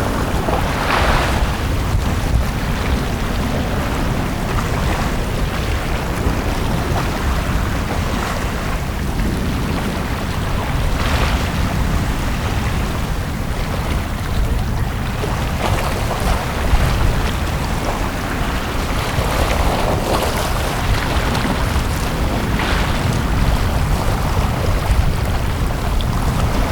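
Small sea waves washing onto a beach every few seconds, each a soft rush of surf, over a steady low rumble.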